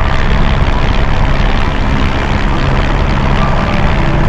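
Airbus AStar helicopter in steady flight: a constant loud rush of engine and rotor noise with a few steady tones held over it.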